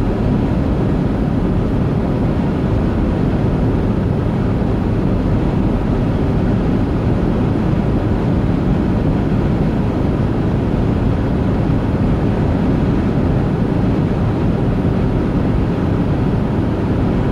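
Steady low rumble of vehicle and road noise, unbroken and even in level.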